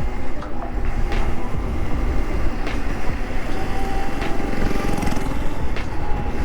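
Electric mini dirt bike with a brushless hub-style motor running at a steady speed: a steady motor whine over heavy wind rumble on the action-camera mic. Faint sharp clicks come about every second and a half.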